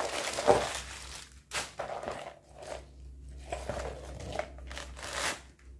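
Crumpled tissue paper and plastic packing crinkling as it is pulled out of a new handbag, in irregular rustling bursts, loudest about half a second in.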